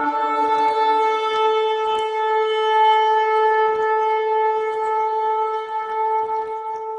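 Shofar blown in one long, steady blast, holding a single bright, reedy note.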